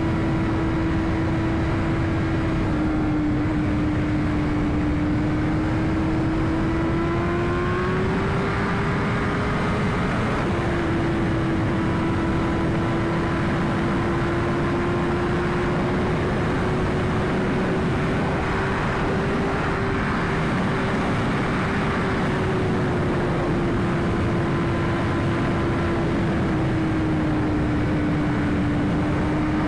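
2021 BMW S1000RR inline-four engine at a steady cruise heard from the rider's helmet, its note holding nearly level and drifting gently up and down with small throttle changes, over a constant rush of wind noise.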